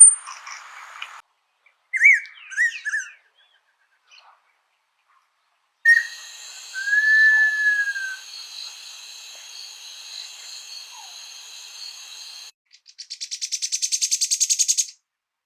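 Several songbirds calling in short separate snippets: quick downslurred chirps, then one long clear whistled note over a steady high buzzing, and near the end a rapid pulsing trill that grows louder.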